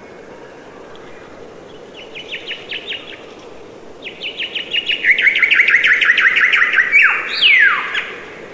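A songbird singing: a short run of quick, falling chirps, then about a second later a longer, faster trill that ends in two sweeping notes falling in pitch, over a steady outdoor background hiss.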